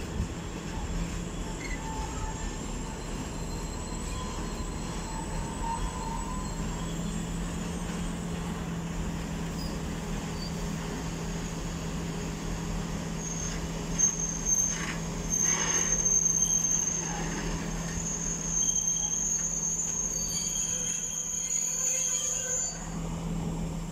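Freight train of open coal wagons rolling past with a steady low hum. In the second half the wheels squeal high and shrill, with a few knocks about two-thirds of the way in.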